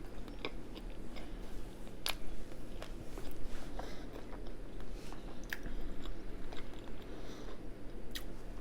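Close-miked mouth sounds of a person biting into and chewing a vegan loaded potato skin dipped in cheese sauce: steady wet chewing with a few sharp crunchy clicks.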